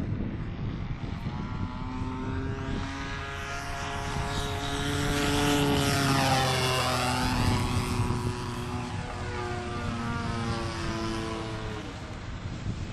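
Radio-controlled Yak 54 model airplane's engine and propeller running in flight, a steady buzzing note. About six seconds in, it passes close by: it grows loudest and its pitch drops as it goes past, then it fades as it flies away.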